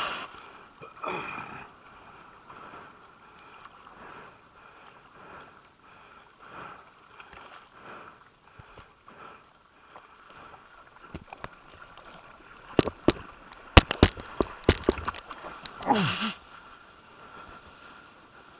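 A surfer's sniffs and breathing noises over water sloshing against a longboard, with a short falling grunt about a second in. Near the end comes a quick run of sharp clicks and knocks, then a falling groan.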